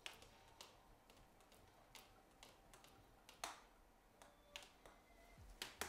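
A wooden stirrer tapping faintly against the glass carafe of a French press as hot water and coffee grounds are stirred: a few light, irregularly spaced clicks, the clearest about halfway through.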